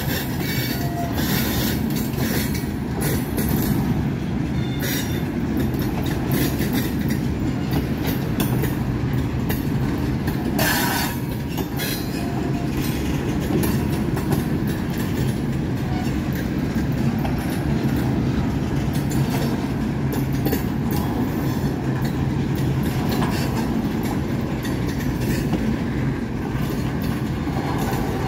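Freight train tank cars rolling past close by: a steady low rumble of steel wheels on rail, with clicking as the wheels cross the rail joints. A brief harsh burst about eleven seconds in.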